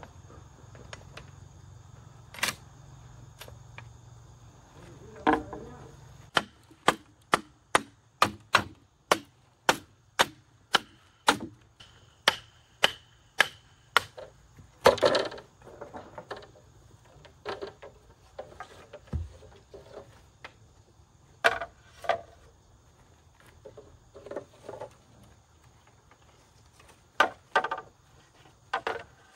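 Rhythmic chopping: sharp strokes about two to three a second in a steady run from about six seconds in, then one louder blow and a few scattered knocks.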